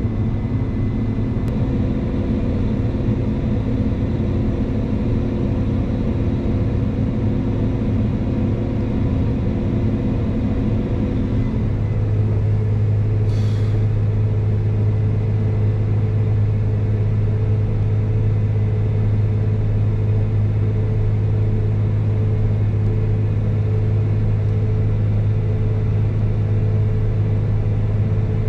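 Combine harvester running with a steady drone; about twelve seconds in the drone shifts and its low hum grows stronger.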